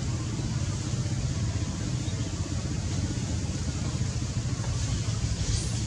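Steady low rumble with a faint hiss over it: outdoor background noise, with no distinct calls or impacts.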